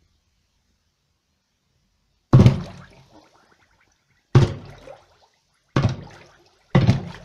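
Glock 26 Gen 4 9 mm pistol fired with the gun held under water: four separate sharp shots, each dying away within about half a second, coming closer together, about two seconds, then a second and a half, then one second apart.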